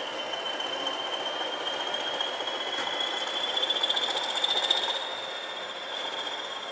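High, steady wheel squeal from a Class 20 diesel locomotive (D8110) moving slowly toward the coaches on curved track. Its pitch rises a little, and it is loudest and flutters about four to five seconds in before easing off.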